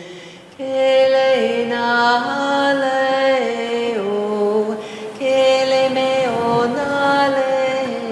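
A singing voice chanting in long held notes that step down in pitch, in two slow phrases, the second beginning about five seconds in.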